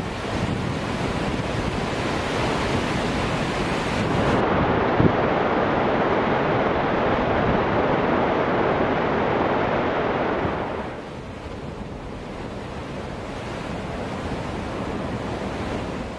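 Heavy rush of water discharging from a dam outlet, a steady noise with wind on the microphone. It changes at a cut about four seconds in and grows quieter about eleven seconds in.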